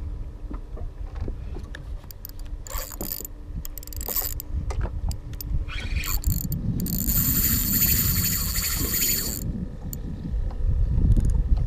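Spinning reel being cranked in short spells, its gears giving a high whir, with the longest spell lasting about two and a half seconds in the second half. A low rumble runs underneath throughout.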